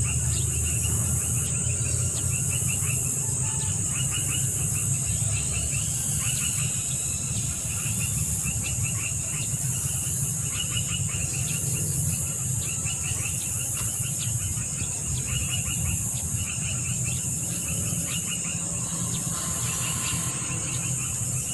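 Insect chorus: a steady high-pitched hum with a pulsing buzz above it, and repeated trains of rapid chirps, over a low steady rumble.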